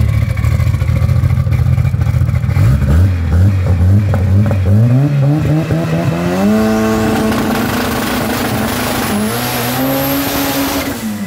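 VW Gol drag car's engine idling with a low rumble, then revved up in rising steps from about three seconds in and held at high revs for several seconds. A high thin whistle climbs over it near the end, and the revs fall away just before the end.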